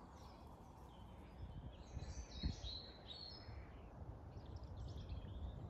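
Faint small-bird chirps over a low steady outdoor rumble. The calls cluster about two to three seconds in and come back faintly near the end, with one soft thump among them.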